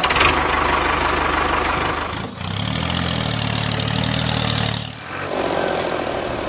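Small engine running steadily in three stretches that change abruptly about two and five seconds in. The middle stretch has a clear low hum.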